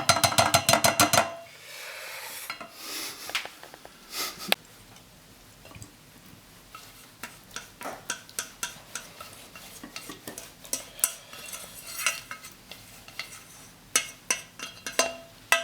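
Utensil stirring and scraping chicken sausages and beans in a pan. A rapid run of clicks comes in the first second, then scattered clinks and knocks against the pan.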